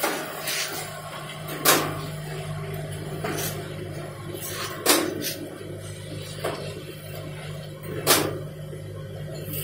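Automatic paper dona (foil bowl) making machine running: a loud press stroke knocks about every three seconds, with lighter knocks in between, over a steady low machine hum.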